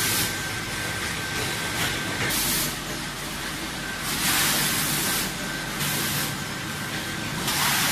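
Steady hissing machinery noise in a water bottling plant, with a faint steady high whine. The hiss swells briefly several times.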